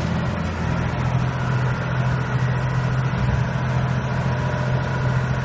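Renault 106-54 tractor's diesel engine running steadily under load as it pulls a four-furrow plough.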